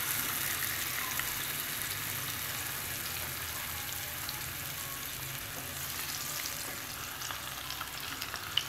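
Marinated chicken pieces sizzling in hot cooking oil in a non-stick pan, just after going in: a steady hiss that slowly dies down.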